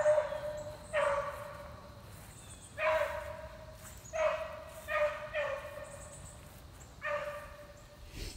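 Rabbit-hunting beagle baying in the brush, a string of drawn-out bays about every one to two seconds, as it trails a rabbit.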